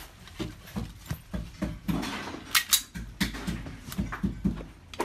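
Handling noise from gloved hands pulling a pistol out of a black cloth bag: rustling with a string of soft knocks and clicks, and two sharp clicks in quick succession just past halfway.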